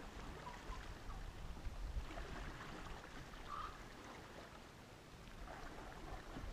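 Faint lakeshore ambience: small ripples lapping at the water's edge, with a light low wind rumble and a few faint distant blips.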